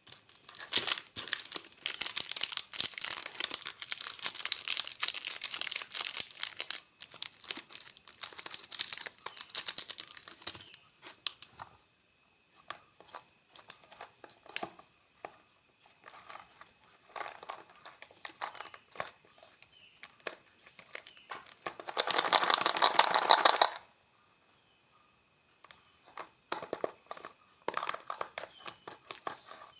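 Plastic snack wrappers crinkling and being torn open by hand: dense crackling for the first ten seconds or so, then sparser rustles and clicks, with one louder burst lasting about two seconds around two-thirds of the way through.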